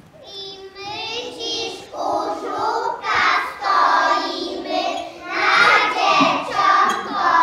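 A group of young children singing together on stage, growing louder over the first few seconds.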